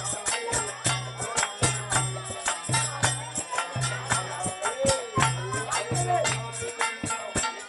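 Bengali kirtan music: kartal hand cymbals clashing in a quick, steady rhythm over a khol drum and harmonium, with a voice singing faintly.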